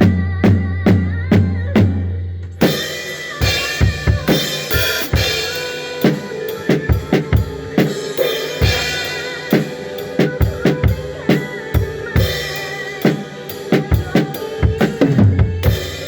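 Drum kit with kick, snare and rimshots played along with a pop ballad's backing track. Steady hits over a held bass note at first, then the full band and a busier drum groove come in about two and a half seconds in.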